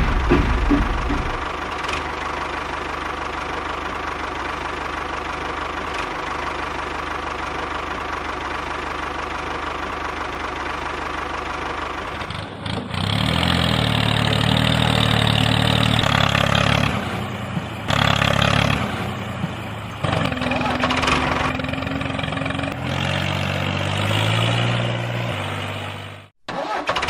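An engine running steadily at first, then louder, with its pitch shifting up and down in steps.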